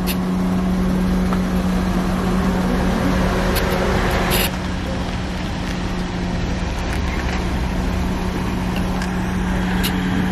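A car engine idling: a steady, even hum over a low rumble, with no change in pitch.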